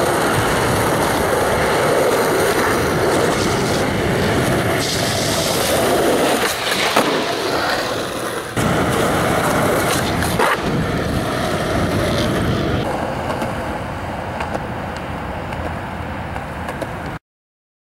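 Skateboard wheels rolling on asphalt with a steady rolling noise, and a few sharp clacks of the board around the middle. The sound cuts off suddenly near the end.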